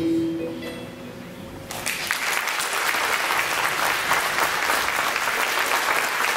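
A held note of the dance music fades out, and about two seconds in audience applause starts and carries on steadily.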